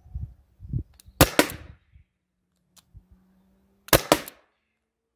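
Two shots from an HDR 50 CO2-powered .50-calibre revolver, sharp cracks about two and a half seconds apart, each with a quick second crack close behind.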